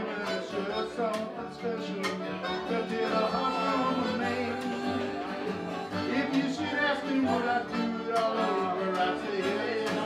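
Acoustic band playing an instrumental break: a harmonica carries the lead with sustained, bending notes over two strummed acoustic guitars and a plucked upright bass.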